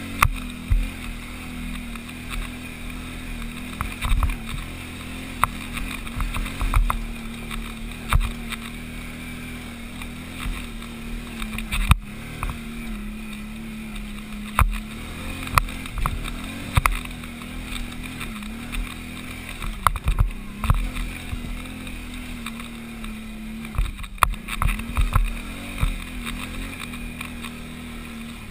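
Can-Am 500XT ATV's Rotax V-twin engine running under load up a steep trail, holding a steady pitch with a few brief dips. Frequent sharp knocks and thumps come through as the machine jolts over the rough, rutted ground.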